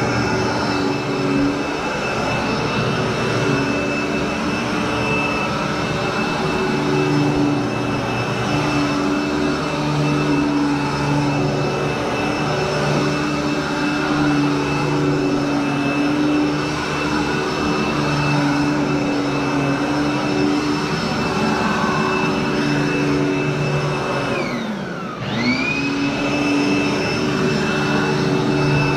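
Royal commercial upright vacuum cleaner running steadily over carpet with a high whine. About 25 seconds in, its motor briefly winds down in pitch and spins back up to full speed.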